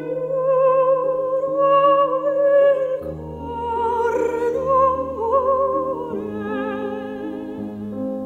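Operatic female voice singing long held notes with a wide vibrato, over sustained low accompaniment notes that change chord a few times.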